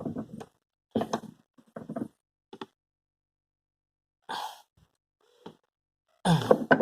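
A few short knocks and clicks, then a brief rattle about four seconds in, from a wrench and the rear seat backrest's hinge bolt being worked on.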